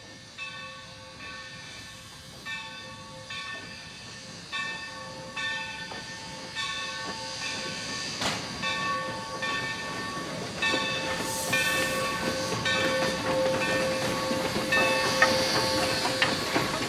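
Steam locomotive No. 3025's bell ringing at a regular stroke as the engine approaches and passes, with steam hissing that grows louder in the second half as it draws close.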